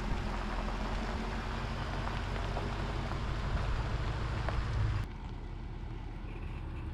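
A motor vehicle's engine running steadily with a low hum and road or wind noise. The sound cuts abruptly to a quieter, similar hum about five seconds in.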